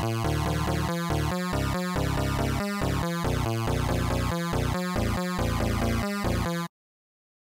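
A short electronic music beat with a steady, choppy rhythm, played from an audio file. It stops abruptly about a second before the end, leaving silence.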